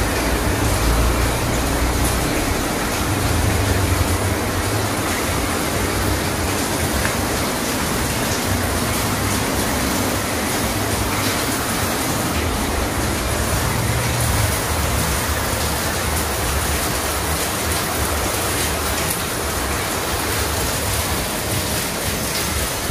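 Heavy rain falling steadily, a dense even hiss, with a low rumble beneath it that fades out about two-thirds of the way through.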